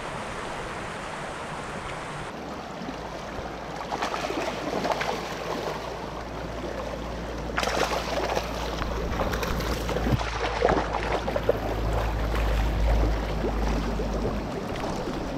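Shallow creek water rushing and splashing over rocks right at the microphone. A low rumble runs under it from about two seconds in until near the end.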